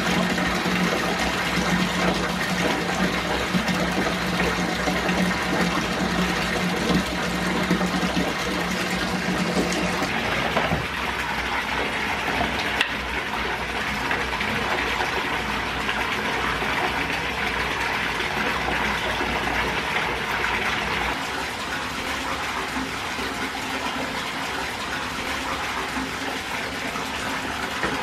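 Tap water pouring steadily into a partly filled bathtub, a continuous rush that changes slightly in tone about ten seconds in.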